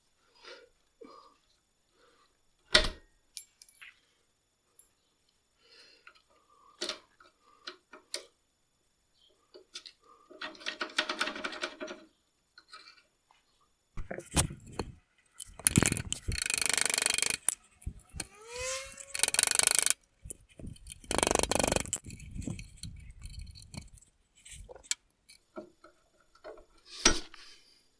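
Hand tools working metal pins out of the parking-brake mounts under a vehicle frame: scattered clinks and knocks, then several loud rasping bursts, with a short rising squeak of metal on metal between them.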